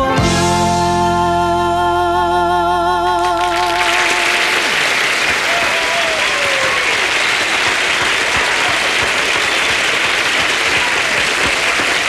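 The singer and band hold the final note of a ballad, the voice wavering with vibrato, and stop about four seconds in. Studio audience applause follows.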